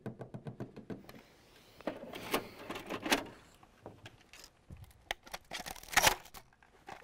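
Fingers tapping quickly on a desk, about ten light taps a second for the first second. Then a VHS cassette is pulled out of a TV-VCR combo and handled, with plastic clacks and rustling. The loudest clatter comes about six seconds in.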